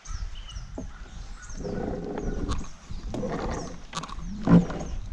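An anchor being handled from an aluminium canoe: three rough rubbing bursts and a sharp knock at about four and a half seconds. Birds chirp faintly in the background.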